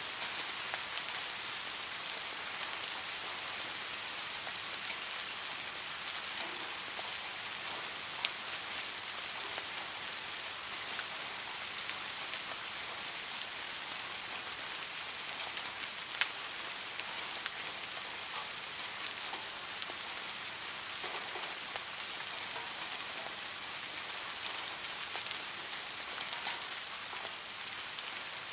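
Steady rain falling on a surface: an even hiss with scattered individual drop hits, two sharper ones about eight and sixteen seconds in.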